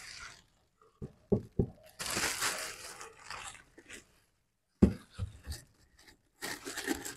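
Clear plastic wrapping crinkling as a leather boot is pulled out of it, with a few short knocks and one sharper thump just before the middle.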